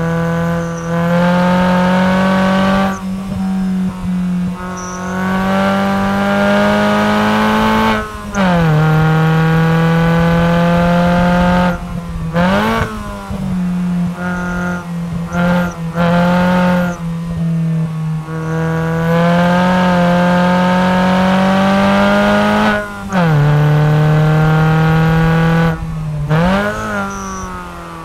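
Alfa Romeo 147 1.6 Twin Spark four-cylinder engine through a Force-G aftermarket exhaust, accelerating hard on track. Its pitch climbs steadily in each gear and breaks off at each gear change or lift of the throttle. Twice, near the middle and near the end, it gives a quick rev blip, rising and falling on a downshift.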